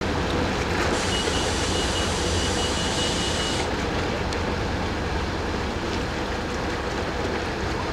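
Kwa-di Tabil-class ferry Chetzemoka's diesel engines running with a steady low rumble as it pulls away from the dock, over churning water. A hiss with a faint high whistle is heard for a few seconds near the start, then cuts off.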